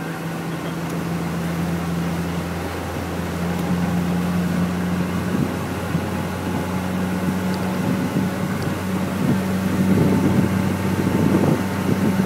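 Speedboat engine running steadily at speed, its pitch edging up slightly about three seconds in, with rushing water and wind noise that grow louder toward the end.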